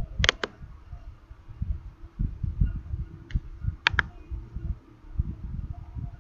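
Computer mouse clicks: a quick double click near the start, a single click past three seconds, and another quick pair about four seconds in, over low, uneven rumbling thumps.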